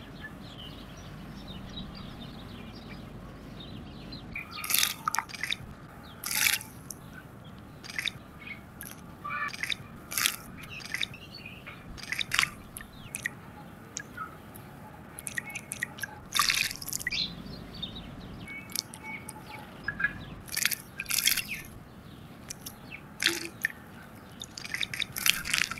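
Water splashing and dripping as house sparrows bathe in a shallow puddle: short, sharp splashes at irregular intervals, some in quick clusters, over a faint steady hiss.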